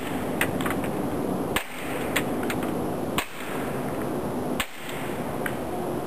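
Three suppressed shots from a Walther P22 .22 pistol fired through a wet suppressor, its baffles greased with white lithium grease. The shots are short sharp cracks about a second and a half apart, with fainter clicks between them.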